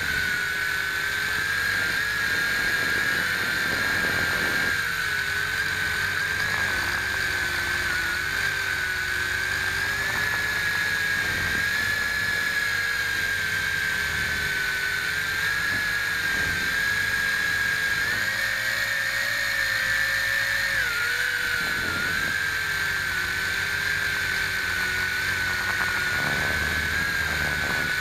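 Motors and propellers of a WLtoys V262 quadcopter in flight, heard from the camera mounted on it: a steady high whine whose pitch wavers slightly with the throttle, dipping briefly about three quarters of the way through.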